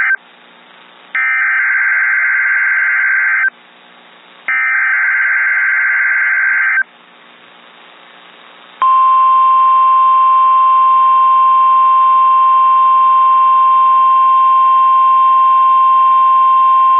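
Emergency Alert System SAME header bursts from a NOAA Weather Radio broadcast: the tail of one burst and then two more warbling two-tone data bursts, each about two seconds long with gaps of about a second. About nine seconds in, the steady single-pitch 1050 Hz weather radio warning alarm tone begins and holds. Together they are the signal that activates alert receivers at the start of a tornado-drill test alert.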